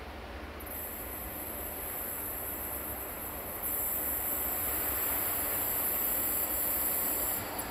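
Approaching freight train hauled by a 060-EA (LE5100kW) electric locomotive: a rumble that grows steadily louder, with a high hiss that sets in about a second in and strengthens about halfway through.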